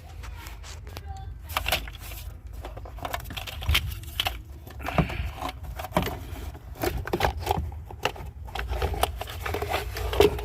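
Irregular clicks, knocks and light rattles of hand tools and plastic engine-bay parts being handled.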